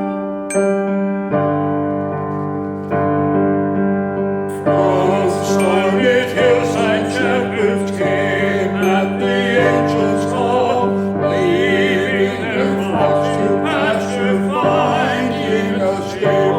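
Music: held keyboard chords, joined about four and a half seconds in by voices singing with vibrato over the accompaniment.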